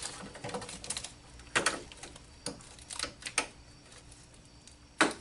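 Irregular sharp clicks and light plastic knocks as the lock cable end is worked into a replacement interior door handle of a 1999 Toyota Camry, the loudest click near the end.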